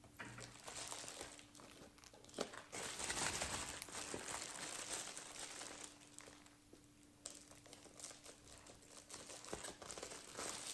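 Packaging crinkling and rustling as cross stitch kits are handled and unwrapped, loudest about three to four seconds in.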